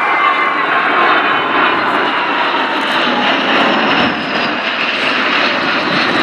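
A formation of CASA C-101 Aviojet jet trainers, each with a single turbofan, flying past. Their engines make a loud, steady jet rush with a thin whine that slowly falls in pitch.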